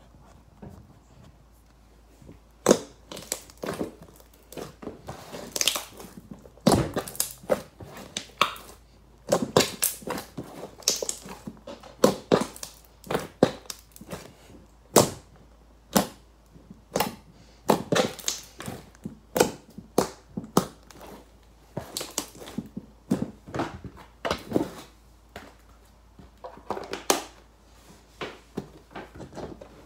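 Purple glitter slime being squeezed and pressed by hand, giving irregular sharp pops and squelches, often one to three a second, starting about two seconds in.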